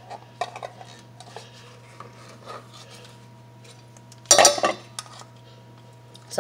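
Small clicks and rustles of a baking powder can being opened and a measuring spoon dipped into it, with one louder scrape about four seconds in as the spoon works against the can.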